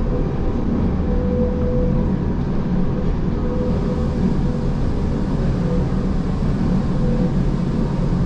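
Gornergrat Bahn electric rack-railway train running downhill: a steady low rumble with a thin whine that comes and goes.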